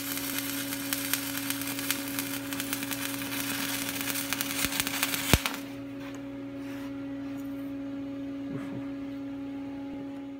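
Arc welding steel railing parts: a steady crackling arc for about five and a half seconds, with a sharp pop just before it stops abruptly. After that a steady hum continues.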